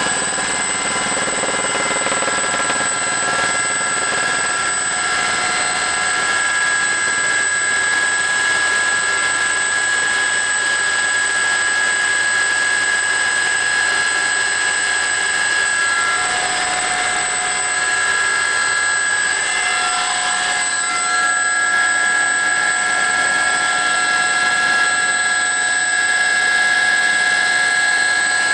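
Aérospatiale Gazelle helicopter in cruise flight, heard from inside the cabin: the steady noise of its turboshaft engine and rotors, with a high, held turbine whine over it.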